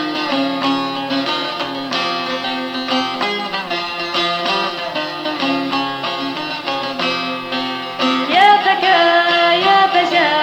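Kurdish folk song accompaniment: a plucked string instrument picks out a quick melody, and about eight seconds in a solo voice comes in singing with a wavering, ornamented line.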